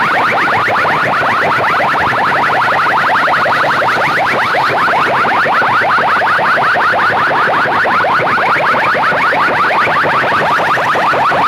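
Electronic chirp effect blasted through a competition loudspeaker system: short rising pitch sweeps repeating rapidly, several a second, at high volume without a break.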